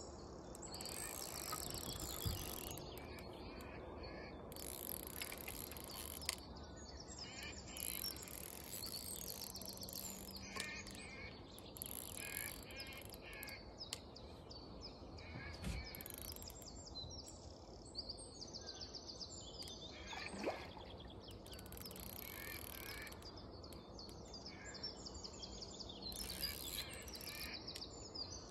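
Birds singing and chirping, many short repeated calls one after another, over a faint steady outdoor background, with a few soft knocks.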